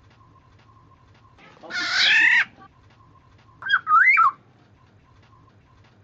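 Kepodang (black-naped oriole) calling on a lure recording: a harsh, nasal call about a second and a half in, then, near the four-second mark, a short fluty whistle that swoops up and down.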